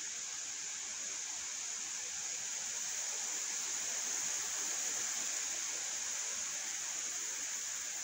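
A steady, even hiss with no separate events, swelling slightly about four to five seconds in.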